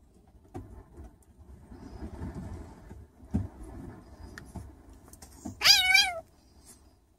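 Young calico kitten letting out one short, high, wavering meow about five and a half seconds in as the puppy pins it in rough play, the loudest sound. Before it come soft rustling and a few bumps of the animals scuffling on the blankets.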